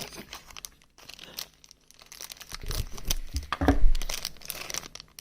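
Blind-box toy packaging being torn open and crinkled by hand: irregular crackling and tearing, busiest a little past the middle.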